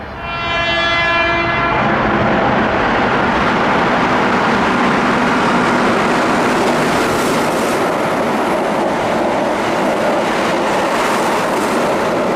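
Keihan 8000 series electric train sounds a short horn blast, then runs past at speed: loud, steady rumble of wheels and motors with wheels clacking over the rail joints in the second half.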